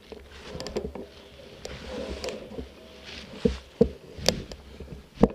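Mountain bike rolling over a leaf-strewn dirt trail: tyre noise over the ground with irregular sharp knocks and rattles from the bike jolting, several of them in the second half.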